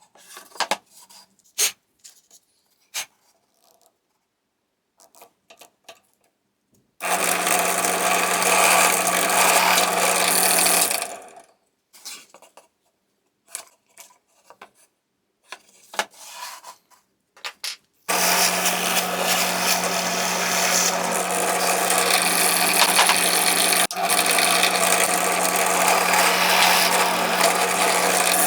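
An electric power tool worked on wood, run twice with a steady hum: about four seconds, then about ten seconds running on to the end. Between the runs come small clicks and knocks of handling.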